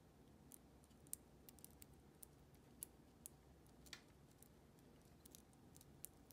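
Faint, scattered small clicks and ticks of fingers handling a small plastic wire connector while swapping two of its crimped pins, over near-silent room tone.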